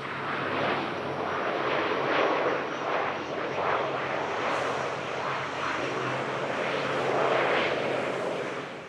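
Jet aircraft engines running as an aircraft passes close by, a rushing noise that swells and wavers, then fades near the end.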